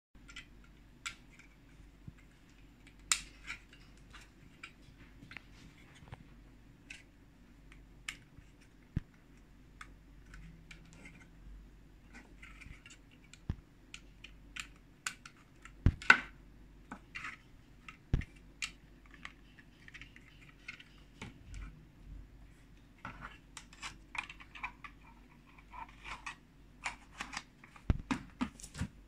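Irregular small plastic clicks, taps and light scraping as hands fit a clip-on plastic sun visor onto a sat nav's casing, the sharpest click about halfway through and a quick run of clicks near the end, over a faint steady low hum.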